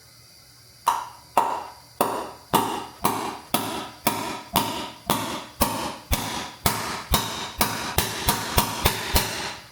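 A hammer striking the valve spring retainers on a Honda B18C cylinder head about nineteen times, roughly two blows a second and faster near the end, each with a short metallic ring. The blows are meant to knock loose stuck valve keepers, and the sound of each blow tells whether the keepers are free.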